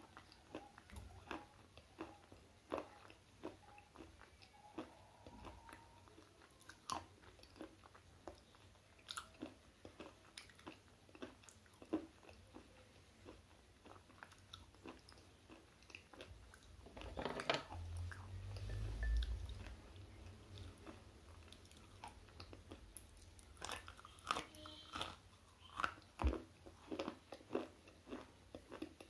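Slate pencil being chewed close to the microphone: a long run of small, sharp crunches and clicks. About two-thirds of the way through there is a louder, longer stretch of crunching with a low rumble under it.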